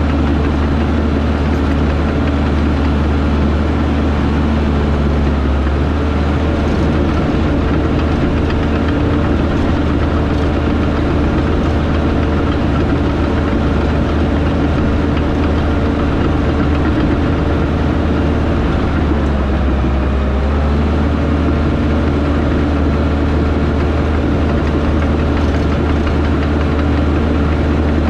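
Diesel engine of a heavy earthmoving machine running steadily with a low drone. The engine note shifts briefly about two-thirds of the way through.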